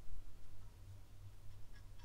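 Low steady hum with a faint tick near the end from a Winsor & Newton Brushmarker's tip touching paper as it colours.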